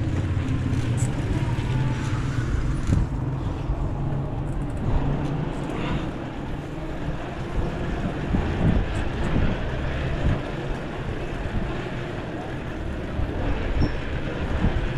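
Low, steady rumble of wind on the microphone of a moving bicycle, mixed with street traffic noise.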